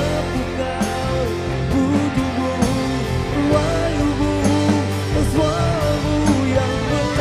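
A live band playing a rock-pop song: male voices singing into microphones over electric bass guitar, with a steady beat of sharp strikes.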